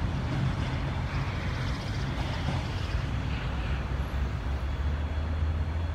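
ED4MK electric multiple unit running slowly past, a steady low hum under continuous running noise.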